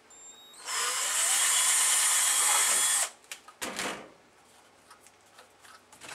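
Cordless drill spinning up with a rising whine and boring through a plastic cup holder for about two and a half seconds, then stopping. A short burst follows about a second later, then light clicks of handling.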